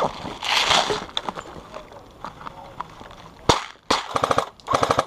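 Airsoft gun firing two short full-auto bursts, a rapid even clatter of shots, after two single sharp cracks about three and a half seconds in.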